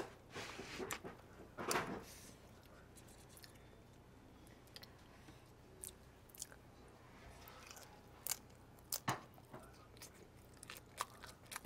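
Faint close-up chewing and biting of shrimp, with a couple of louder crunches in the first two seconds and then scattered sharp clicks.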